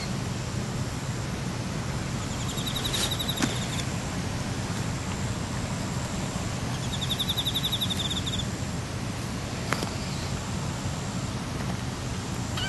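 Steady outdoor background noise with two short, high-pitched rapidly pulsed trills, about two seconds in and again about seven seconds in, and a couple of sharp clicks.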